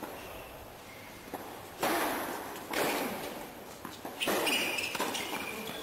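Tennis racket strikes on the ball as a doubles point starts: the serve about two seconds in, the return about a second later, and another shot a little over a second after that.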